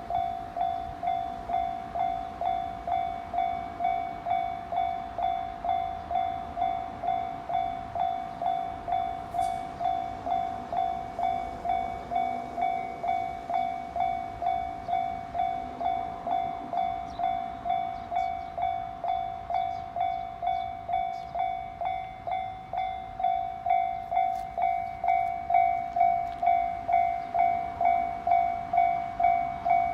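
Japanese railway level-crossing warning bell ringing: a steady, evenly repeated high ding, about three strikes every two seconds. It grows louder a little over two-thirds of the way through.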